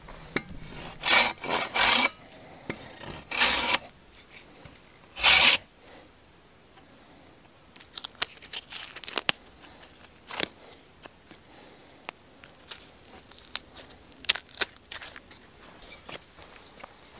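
Saw blade cutting into a birch branch: a quick run of rasping strokes, then two single strokes a couple of seconds apart. After that come quieter crackles and tearing as birch bark is peeled off by hand.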